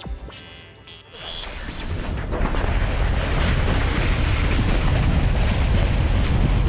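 Wind buffeting the microphone and snow scraping under a snowscoot's boards while riding downhill: a loud, steady rushing with a low rumble that starts about a second in as music fades out.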